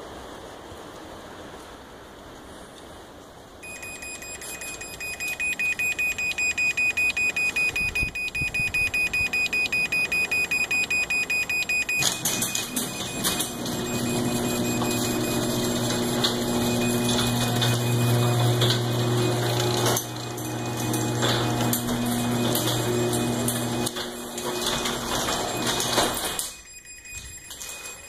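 Rapid, high-pitched warning beeps for about eight seconds, the alert before a remote close from the MyQ controller. Then the garage door opener's motor runs and the door rolls down for about fourteen seconds, stopping abruptly near the end.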